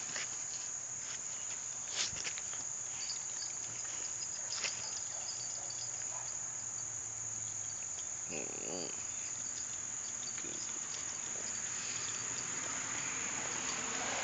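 Steady high-pitched insect chorus in the background, with a couple of faint knocks and a brief low whine a little past halfway.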